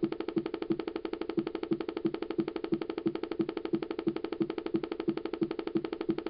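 2007 iMac making an abnormal buzzing noise after waking from sleep, pulsing evenly about three times a second without letting up.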